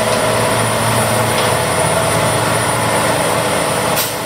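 Fishing boat's engine and machinery running with a steady, loud drone and a constant hum in the fish-sorting space, with a brief click about four seconds in.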